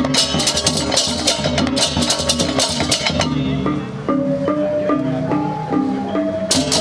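Balinese baleganjur gamelan playing: fast, dense clashing of hand cymbals over drums, which drops away about halfway for a few seconds of separate pitched gong-chime notes, before the cymbals crash back in near the end.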